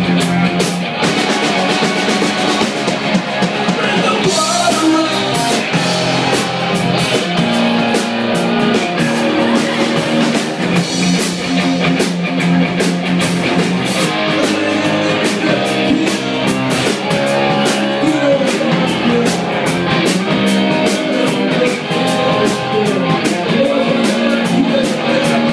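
Live rock band playing loud: distorted electric guitars over a drum kit, with a singer's voice on top.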